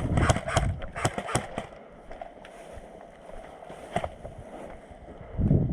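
Airsoft gun firing a quick run of about a dozen sharp shots over the first second and a half, then one more snap about four seconds in. A loud low rumble comes in near the end.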